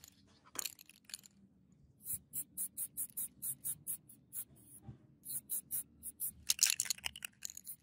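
Rapid short hisses of red paint being sprayed onto a steel katana blade, about three or four a second, with a longer, louder burst near the end.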